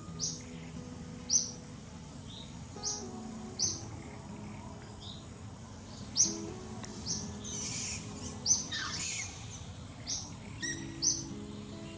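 Birds chirping: short, sharp, high calls repeating roughly once a second, over quiet background music of held low notes.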